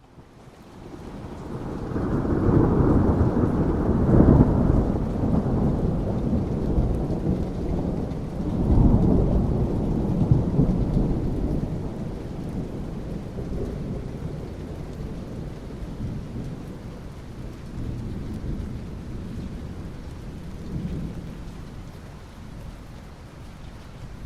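Thunder rumbling over steady rain. The rumble swells in over the first two seconds, surges again about nine seconds in, then slowly dies away under the rain's hiss.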